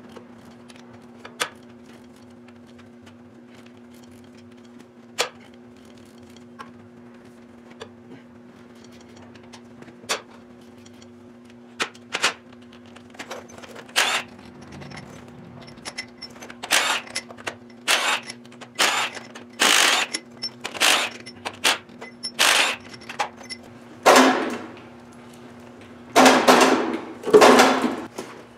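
Cordless impact wrench running in a series of short bursts, spinning out the cylinder head bolts on a Detroit Diesel 3-53 two-stroke engine. A few scattered metal clicks from hand tools come first, and a steady low hum runs underneath.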